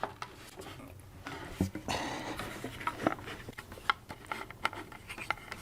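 Wooden wedges and parts of a Monterey pine table being handled and pushed into their joints: scattered light clicks and knocks of wood on wood, with some rubbing.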